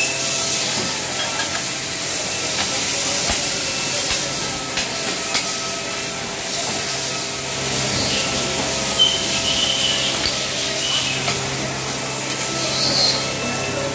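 Steady factory-floor machinery noise: a loud hiss with a steady hum, broken by scattered short metallic clicks and knocks as a part is handled and clamped in a steel gauge fixture.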